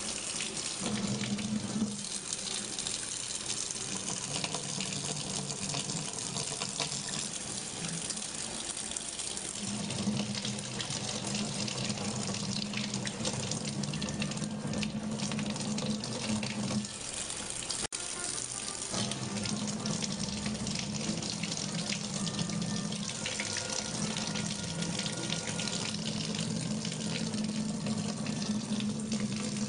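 Water running steadily from a kitchen tap into a sink, with a low hum that comes and goes.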